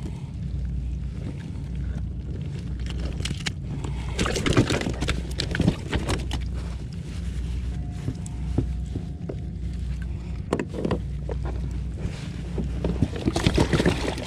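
Rustling and knocks of a caught blackfish being handled and wrapped in a burlap sack inside a plastic kayak, in clusters a few seconds in, again later and near the end, over a steady low rumble.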